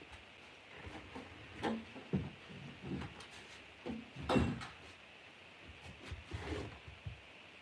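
Scattered soft knocks and rustles, the loudest about four and a half seconds in.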